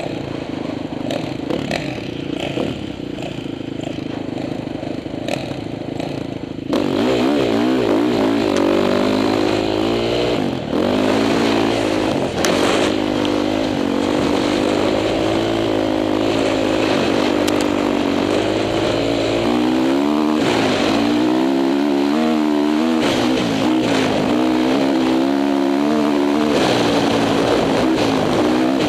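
Honda CRF450 dirt bike's single-cylinder four-stroke engine running. It is steadier and quieter for the first several seconds, then about seven seconds in it turns suddenly louder and revs up and down repeatedly as the bike rides over sand.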